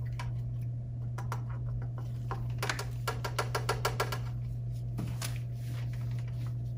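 Paintbrush being rinsed in a plastic cup of water, the brush clicking quickly against the cup's side for about a second and a half around the middle, with a few single taps elsewhere. A steady low hum runs underneath.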